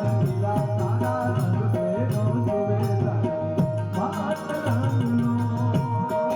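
Traditional Indian folk music: sustained held melody notes over a steady hand-drum beat.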